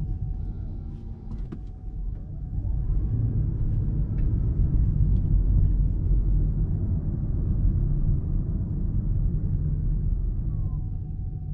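2022 Toyota Prius AWD-e driving on the road: a steady low road and tyre rumble, with a faint whine that twice rises and then falls in pitch.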